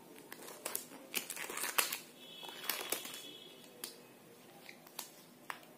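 Latex surgical glove being pulled onto a hand and worked over the fingers: irregular rubbery crinkling and small snapping clicks, with a brief squeak about two and a half seconds in.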